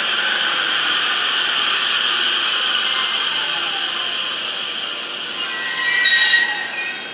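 A Joban Line train running past with a steady rushing noise of wheels on rail. Near the end there is a brief, louder high-pitched squeal, and then the sound drops away.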